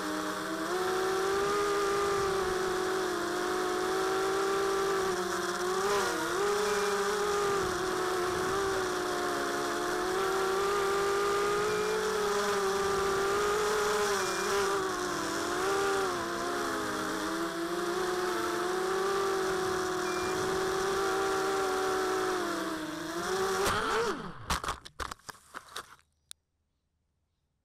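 Four Tiger Motors MT1306-10 3100kv brushless motors spinning GemFam 5x3 two-blade props on a mini quadcopter, heard from the onboard camera as a high whine whose pitch wavers up and down with the throttle. The owner says the motor bearings are getting really bad. Near the end the pitch drops and the motors cut out in a few stutters as the quad comes down onto the ground.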